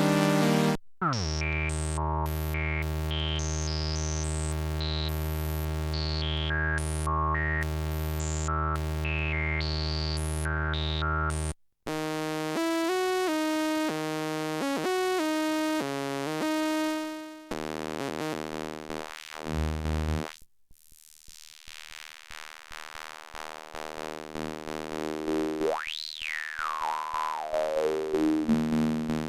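Arturia MicroFreak synthesizer playing a run of preset patches: a held bass note under a bright pattern of high notes, then a stepping note sequence, then pulsing notes with a resonant filter sweep that rises and falls near the end.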